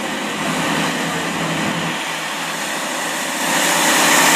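Class 165 Turbo diesel multiple unit pulling out and passing close by: a steady rush of underfloor diesel engines and wheels that grows louder about three and a half seconds in as the cars draw alongside.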